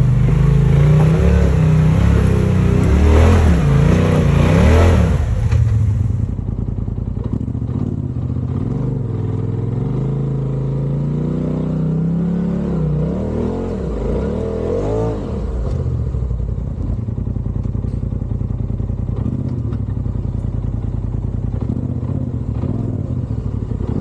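Side-by-side UTV engine running under varying throttle, its pitch rising and falling as the throttle is worked. Loud for about the first six seconds, then lower and steadier with a few more swells in pitch.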